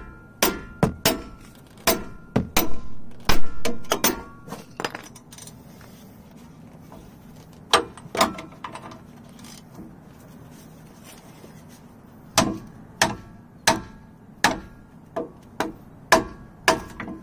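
Sharp metallic knocks and clinks of a ratchet and socket worked against a tight 21 mm brake caliper bracket bolt that will not break loose. There is a run of knocks in the first few seconds, a lull, then about eight more near the end.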